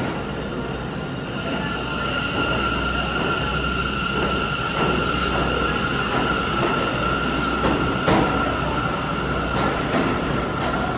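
Bombardier R179 subway train passing at a steady rumble that gets louder about two seconds in, with a steady high-pitched tone held throughout and a few sharp clicks near the end.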